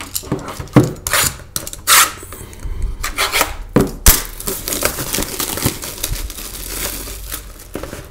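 Plastic shrink-wrap being ripped and peeled off a cardboard trading-card box: several sharp rips in the first four seconds, then a steady crinkling rustle as the wrap comes away.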